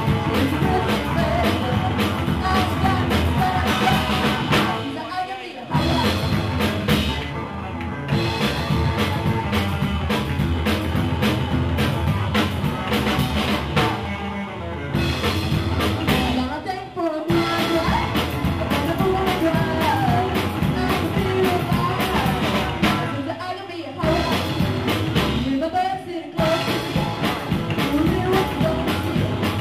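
Live rock and roll band playing: a woman singing at a microphone over hollow-body electric guitar, upright double bass and drum kit.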